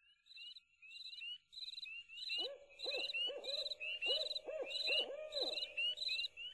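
Animal calls: a steady series of short high chirps about twice a second, joined about two seconds in by lower calls that rise and fall in pitch, several in quick succession.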